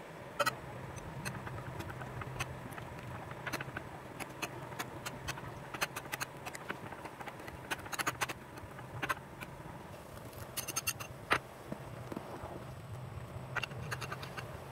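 Metal spoon clinking and scraping against a ceramic bowl, mashing canned sardines in tomato sauce: irregular sharp taps over a low steady hum.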